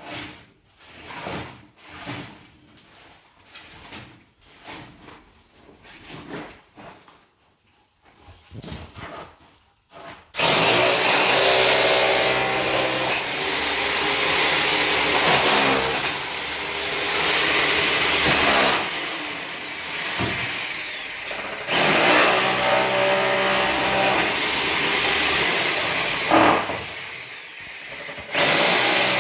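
Scattered knocks and clatters of rubble, then about ten seconds in a power tool starts up loud and runs on, its pitch rising and falling under load with a few short dips, while brick is cut away around a fireplace opening.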